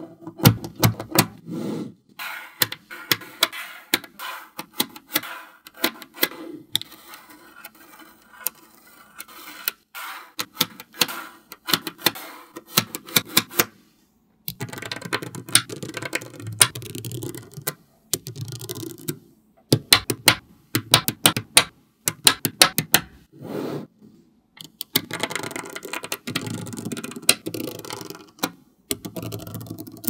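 Small magnetic balls clicking and clacking as they snap together and are set in place, in quick irregular runs of sharp clicks with short pauses between them.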